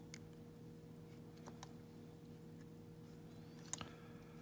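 Faint small clicks and taps of a lock and small tools being handled, with a slightly louder double click near the end, over a steady low hum.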